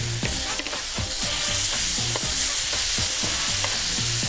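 Calamari pieces sizzling on a hot grill pan: a steady frying hiss.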